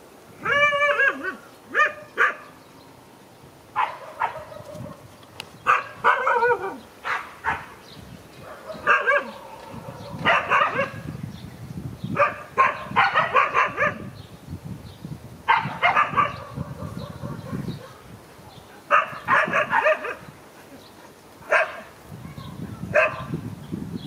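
Dog barking repeatedly in short bouts of two to four barks, a fresh bout every couple of seconds.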